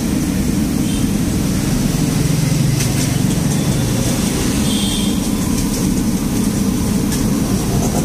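Steady low mechanical hum of a running machine in a food workshop.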